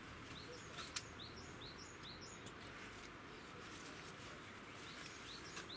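A small bird singing a quick phrase of high, short chirping notes, about three a second, about a second in and again near the end, over faint outdoor background noise. One sharp click about a second in.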